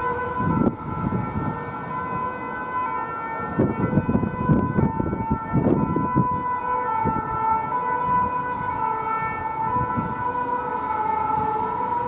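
Two-tone sirens of Paris Fire Brigade emergency vehicles sounding together, with low rumbling noise underneath that swells about four to six seconds in.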